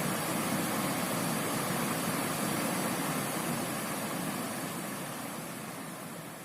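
Steady rushing of a rocky river's flowing water, an even hiss that fades away over the last couple of seconds.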